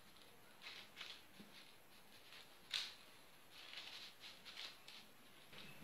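Faint, soft scraping strokes of a utensil spreading Nutella across a crepe on parchment paper, with one sharp click about three seconds in.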